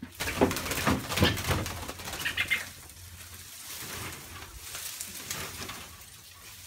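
Leafy shrub branches rustling and crackling as they are shaken hard for about two seconds to flush out a trapped bird. A brief high chirping follows about two seconds in, then fainter rustling.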